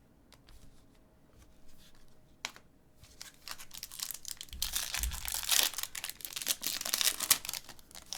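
A trading-card pack's wrapper being torn open and crinkled by hand, a dense crackling rustle that builds from about three seconds in and stops near the end, with a single click shortly before it starts.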